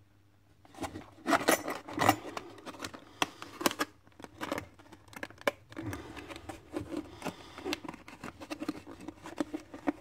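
Hard clear plastic blister packaging being flexed and pried apart by hand, crackling and clicking irregularly. It starts after almost a second of quiet, with the sharpest snaps around one and a half to two seconds in.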